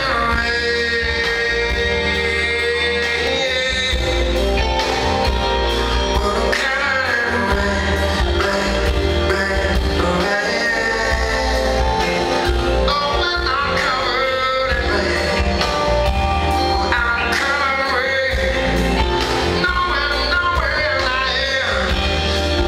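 Live band playing a slow blues: a male voice singing over electric guitars and drums.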